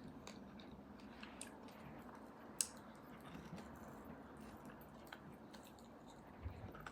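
Faint close-up chewing and wet mouth sounds, with a single sharp click about two and a half seconds in.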